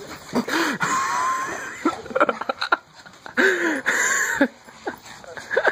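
Two dogs play-fighting, a small dog and a larger brindle-and-white dog, making growls and short pitched vocal noises in several separate bouts. The loudest bouts come about half a second in and again around the middle.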